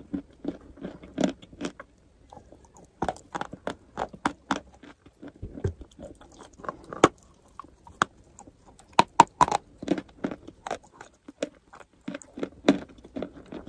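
A person chewing and biting soft white chalk close to the microphone: many irregular crunches and sticky mouth clicks, dropping off briefly about two seconds in.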